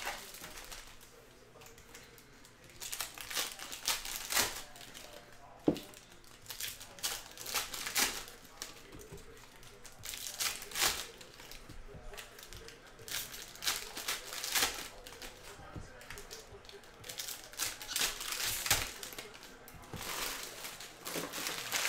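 Foil wrappers of Panini Donruss basketball card packs crinkling and tearing as they are ripped open by hand, in irregular bursts, with the cards handled and stacked between. There is one sharp tap about six seconds in.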